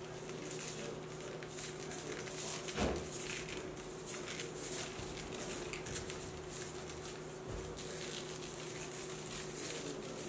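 Sprinkles shaken from a small jar onto cookie dough on a parchment-lined baking sheet: a faint scattered patter and rattle of tiny grains. A steady low hum runs underneath, and there is one soft knock about three seconds in.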